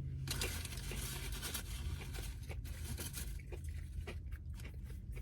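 Crinkling and rustling of a paper food wrapper being handled, dense for about three seconds and then breaking into scattered crackles, over a steady low hum.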